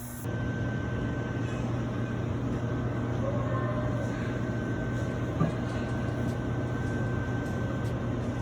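A steady low machine hum with a thin, steady high whine over it, and a single click about five and a half seconds in.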